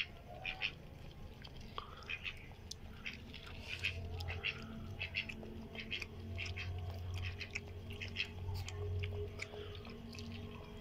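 A puppy lapping milk from a shallow lid: faint, quick wet licking clicks, several a second.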